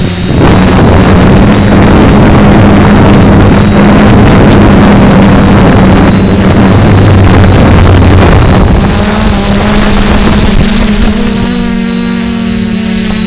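DJI F450 quadcopter's motors and propellers running with a steady hum in flight, picked up by the camera mounted on the frame, with wind buffeting the microphone. The hum shifts in pitch about two-thirds of the way in.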